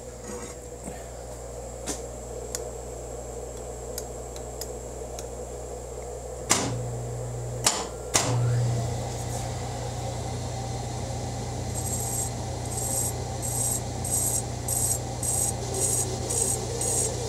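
Hardinge HLV-BK toolroom lathe switched on with a few sharp clicks about six seconds in, then running with a steady hum. From about twelve seconds in, a hand file rasps lightly against the turning steel spindle in regular strokes, about two a second.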